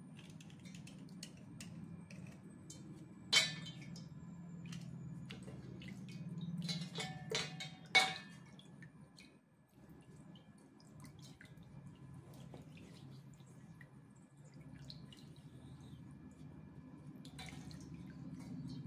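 A slate pencil scraped with a small serrated blade over a steel plate: scattered scratchy clicks, with two loud sharp clicks about three and a half and eight seconds in. Later the pencil is washed in a steel bowl of water, with dripping and splashing.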